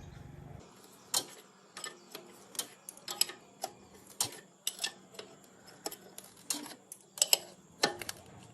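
Hand tools clicking and tapping on diesel engine parts, irregular sharp strikes about one or two a second, some briefly ringing. A low steady hum cuts off about half a second in.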